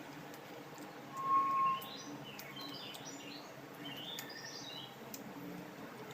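Birds chirping: a run of short twittering calls, starting with one loud, steady whistled note about a second in. A few faint clicks and a low steady hum sit underneath.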